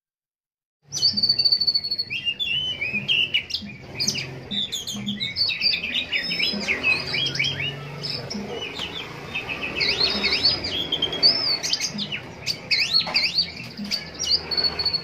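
Oriental magpie-robin (kacer) singing continuously: a rapid, varied run of whistles, chirps and quick up-and-down notes. The song starts about a second in.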